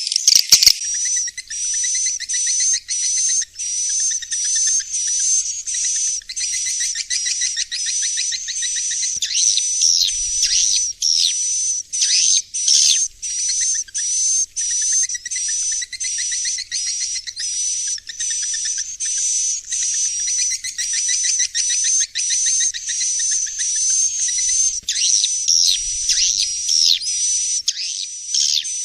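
Recorded swiftlet roosting call (suara inap), played to lure young swiftlets into a swiftlet house: rapid high twittering chirps in short bursts about twice a second, with a thin steady high whistle running beneath.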